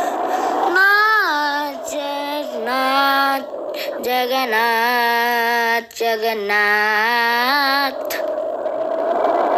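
Devotional song sung by a single high voice, the notes gliding and wavering, with a long held note at the start and again near the end.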